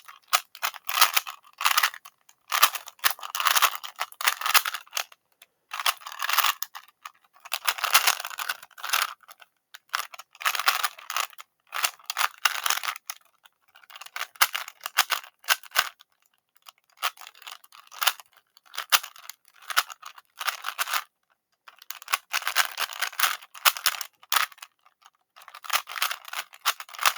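Plastic 3x3 Rubik's cube being turned quickly during a speedsolve: flurries of rapid clicking and clacking layer turns, each a second or two long, broken by short pauses.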